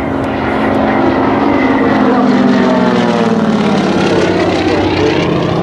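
Aerobatic propeller plane's 500-horsepower Pratt & Whitney engine running hard in a low pass, its pitch dropping from about two seconds in as it goes by.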